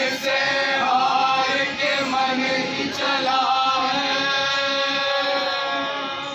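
A group of voices chanting together in long sung notes that slide in pitch, fading near the end.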